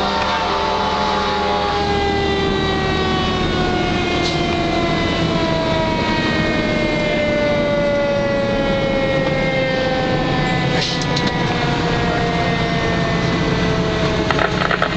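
A fire engine's siren winding slowly down in pitch, falling evenly over the whole stretch, over the truck's engine running. A burst of short clicks comes near the end.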